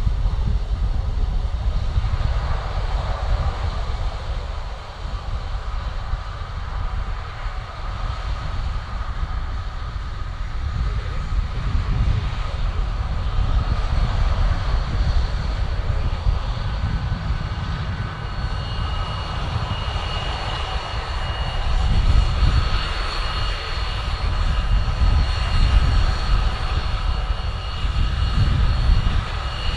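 The four turbofan engines of a BAe 146-100 airliner (Lycoming ALF 502s) running at low power as it taxis. The sound is a steady jet rush over a low rumble, with high whistling whine tones that come in about halfway through and grow stronger.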